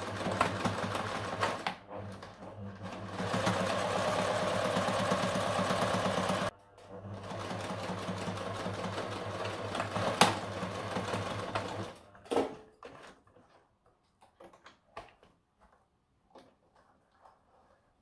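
Electric domestic sewing machine stitching a hem in thick trouser fabric, running faster from about three seconds in, stopping briefly around six and a half seconds, then running again until it stops about twelve seconds in. After that, faint clicks and fabric rustling as the trousers are handled.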